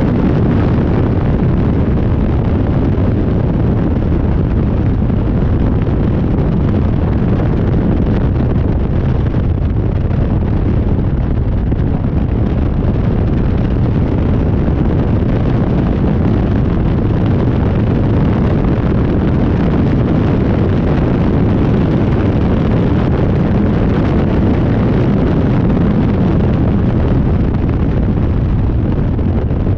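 Loud, steady wind buffeting on the microphone in the open cockpit of a KTM X-Bow at track speed, with the car's engine running beneath it as a dull rumble.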